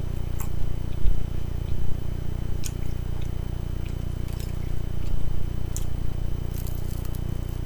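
Close-up eating sounds: chewing spinach salad, then a bite into a chicken wing near the end. A few sharp clicks from a fork against a plastic salad container are heard, over a steady low hum.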